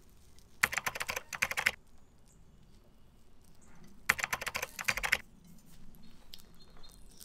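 Flaky croissant being torn apart by hand, its crisp pastry layers crackling in two quick bursts of about a second each, one about half a second in and one about four seconds in.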